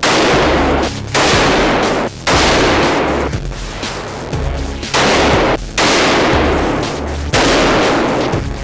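AK-47 rifle shots on an indoor range: about six loud reports at uneven intervals, each ringing and echoing for about a second off the range walls.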